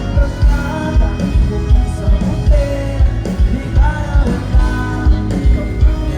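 Band music with a steady beat: a sung melody over drums, bass and guitar.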